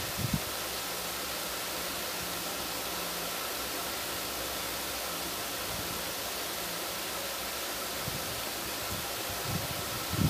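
Steady, even hiss, with a few soft low thumps about a second in and again near the end.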